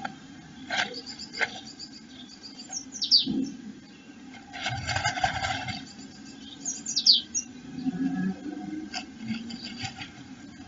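Blue tit shuffling in its nest cup inside a wooden nest box: rustling of hair and moss and scratching clicks, with two quick high falling chirps a few seconds apart.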